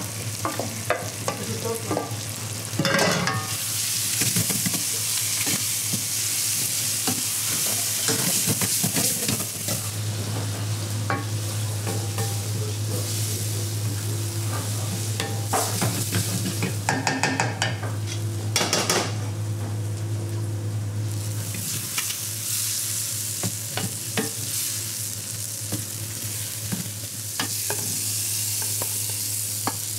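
Beans in tomato sauce sizzling in a frying pan while a wooden spatula stirs and scrapes the pan, with a steady low hum underneath.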